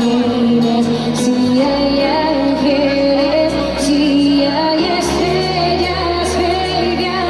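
A woman singing held notes into a microphone over pop band music, played loud through a stage sound system.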